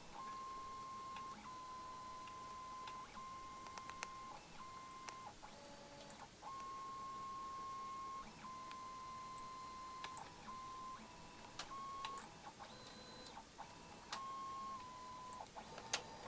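Printer and scanner stepper motors driving a homemade two-axis CNC pen plotter as it draws: a steady high whine that starts and stops with each move and changes pitch slightly from one move to the next, with a few small clicks.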